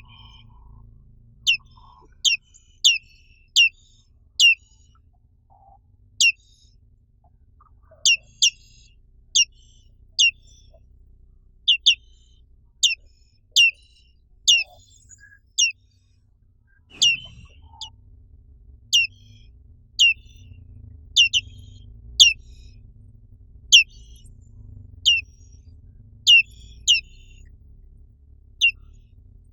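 Black-capped white-eye (Zosterops atricapilla) calling: short, sharp, high notes that slide downward, singly or in quick pairs, about one a second. A faint low hum lies underneath.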